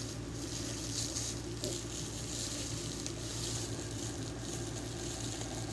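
Steady hiss with a low hum underneath, without distinct knocks or rustles: background noise.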